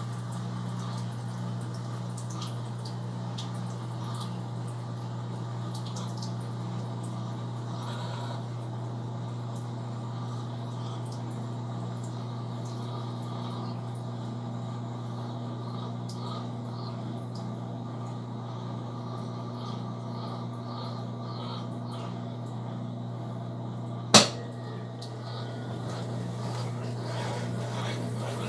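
Brastemp Tira Manchas Pro 12 kg washing machine running with water trickling and dripping inside it over a steady low hum. A single sharp click comes near the end.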